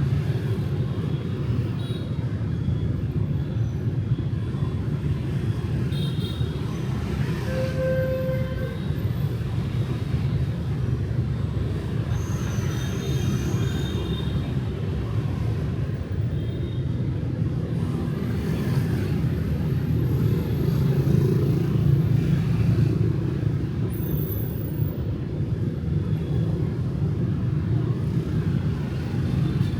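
Steady low rumble of city street traffic with motorbikes passing. A short beep sounds about a quarter of the way in, and the traffic swells louder past the middle.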